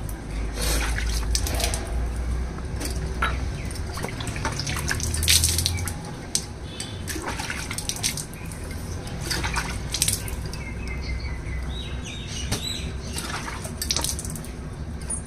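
Water splashing and dripping onto a concrete floor in irregular splats as a cow's teats are rinsed and rubbed by hand before milking.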